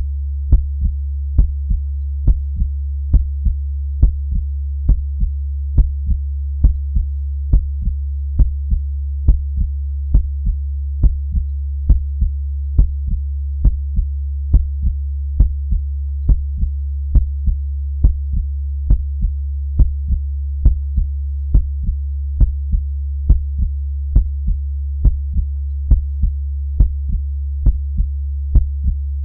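Heartbeat: slow, steady paired lub-dub beats, about 68 a minute, over a constant low hum.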